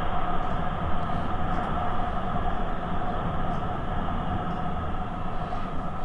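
Steady running noise of a motorcycle ride, with the engine and tyres on wet asphalt blended into one even rumble.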